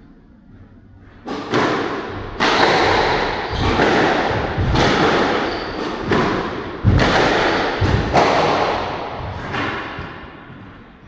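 Squash rally: the ball is struck by the rackets and smacks off the court walls, a sharp hit roughly every second with echo off the walls, starting about a second in.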